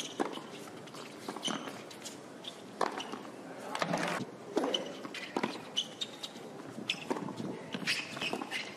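Tennis ball struck by rackets in rallies on a hard court, with sharp hits about a second apart and players' footsteps on the court.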